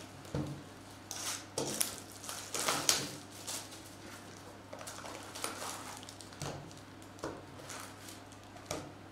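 Foil trading-card packs and their cardboard box being handled: irregular rustles, crinkles and light taps as packs are pulled out of the box, busiest in the first few seconds.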